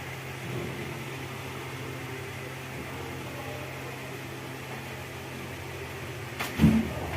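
Steady low electrical hum of a fan or air conditioner, then a single sharp crack with a short thud near the end, typical of a neck joint cracking during a chiropractic adjustment.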